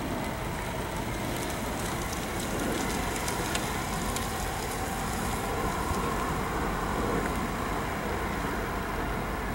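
Freight train cars rolling past, a steady rumble and rattle of wheels on rail with a few faint clicks.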